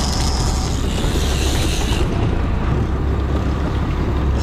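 Boat engine running steadily with a deep rumble, under a hiss of wind and water noise. Short high whines sound in the first two seconds.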